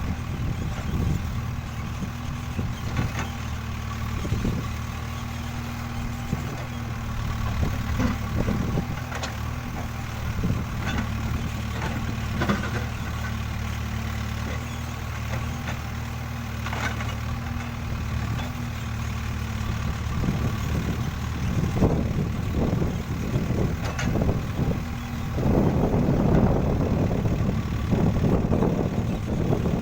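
Backhoe loader's diesel engine running steadily, with scattered knocks and clanks. About 25 seconds in the engine grows louder, working harder.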